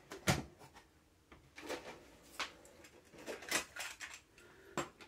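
About six separate plastic clicks and clacks, spread out, as a compact cassette is handled and taken out of a cassette deck.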